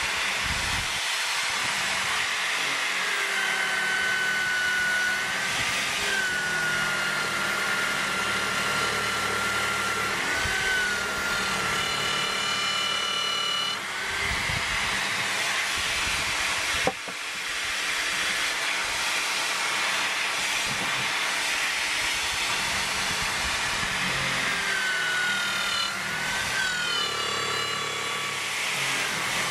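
Bench drill press boring into a hard burl-wood cup blank: the motor and bit run with a steady whine that sags in pitch and recovers as the bit bites into the wood and is lifted out. A single sharp knock partway through.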